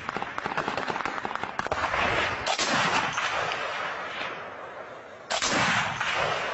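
Gunfire: a rapid string of sharp shots, then two much louder blasts, one about two seconds in and one near the end, each trailing off in a long rolling echo.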